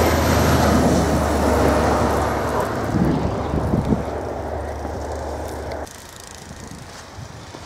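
A vehicle driving past on a snowy road, its tyre and engine noise loudest at the start and fading away. A low steady hum stops abruptly about six seconds in.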